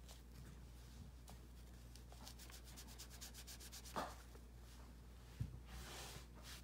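Faint scratching of a felt brush-marker tip stroked over paper, with a quick run of rapid even strokes around the middle. Two soft knocks fall about four and five and a half seconds in.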